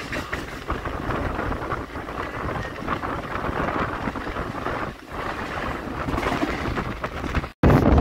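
Steady rumble and rushing noise of a moving MMTS suburban electric train, with wind on the microphone. It cuts out abruptly for a moment near the end, then comes back louder.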